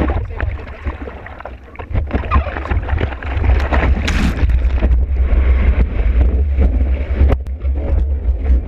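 Seawater splashing and rushing around a surfboard-mounted action camera as the board is paddled into and rides a breaking wave, with a heavy rumble of wind and water buffeting the microphone. A big splash of spray hits about four seconds in.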